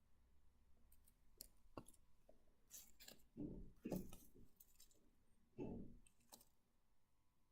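Faint handling of bagged comic books: soft plastic rustles and light clicks, with a few louder rustles about halfway through and again near six seconds.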